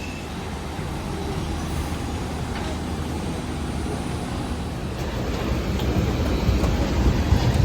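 Steady low rumble inside the cabin of an Airbus A320 taxiing on the ground after landing.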